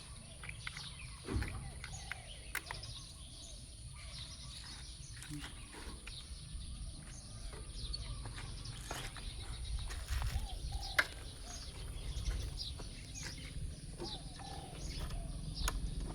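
Birds chirping over a low outdoor rumble, with scattered light clicks and taps and a steady high hiss.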